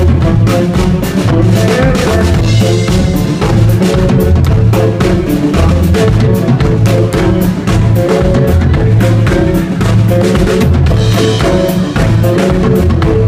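Live band playing loud: a drum kit keeps a steady kick-and-snare beat under electric guitars, with no break.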